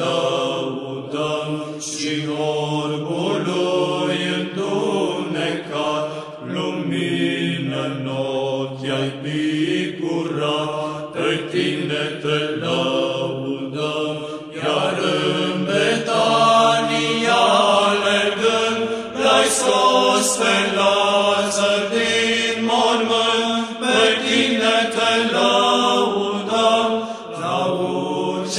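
Soundtrack of slow sung religious chant: voices carrying a melody over a held low drone note that shifts pitch a couple of times.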